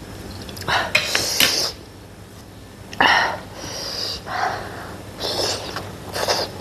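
Close-up eating sounds: a spoon clinking against a dish, soup slurped and momos chewed, in several short bursts with pauses between.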